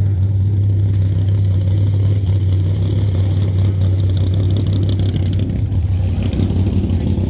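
A car engine idling steadily, a constant low hum with no revving. It is most likely the 2019 Dodge Charger's 3.6-litre Pentastar V6 waiting in the staging lanes.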